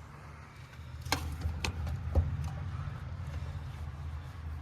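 Steady low hum of heat pump equipment, with three short sharp clicks in the first half.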